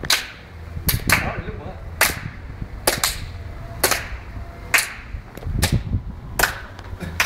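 Sharp hand claps at a steady beat of about one a second, a few in quick pairs, like a crowd's rhythmic clap for a jumper.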